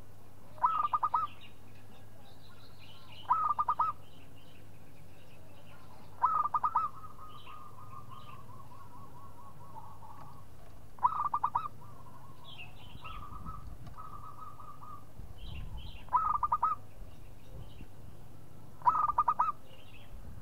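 Zebra dove cooing: six short bursts of rapid staccato notes a few seconds apart, with softer, longer runs of quick cooing notes between them.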